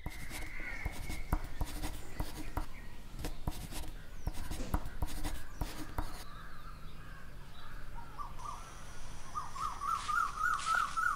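Pen scratching on notebook paper in quick, irregular strokes. Then a bird calling outdoors: a few chirps, then a quick wavering run of repeated calls near the end.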